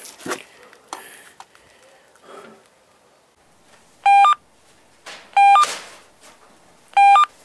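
A mobile phone ringing with a short electronic beeping ringtone: a quick two-note chirp stepping up in pitch, sounding three times about a second and a half apart. A few faint clicks and rustles come before it.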